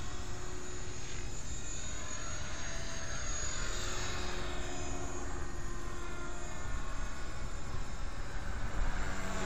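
HK450 electric RC helicopter in flight, its rotor and motor whining steadily, the pitch sliding up and down as it manoeuvres and passes.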